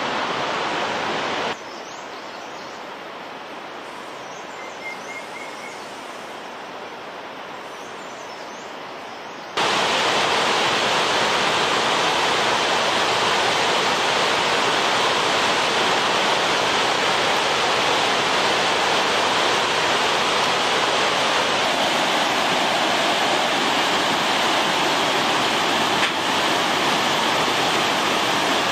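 Rushing white-water mountain river, a loud steady sound of water over boulders, coming in abruptly about ten seconds in. Before that, a quieter stretch of softer rushing with a few faint bird chirps.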